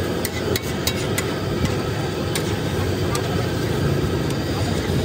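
Metal cooking utensils tapping and clinking on metal in irregular sharp strikes, quicker in the first second or so and sparser after. A steady din of traffic and voices runs underneath.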